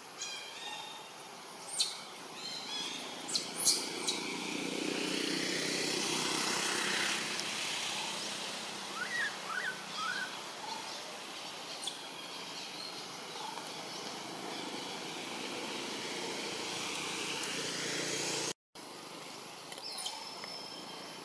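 Outdoor ambience: a steady hiss that swells for several seconds in the first half, with a few short, sharp high chirps or clicks a couple of seconds in and a quick run of bird chirps near the middle. The sound cuts out for an instant near the end.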